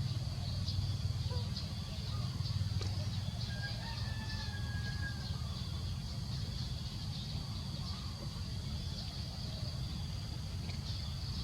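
Outdoor forest ambience: a steady low rumble under a continuous high-pitched hiss with regular small ticks, and a thin whistled call from about three and a half to five seconds in.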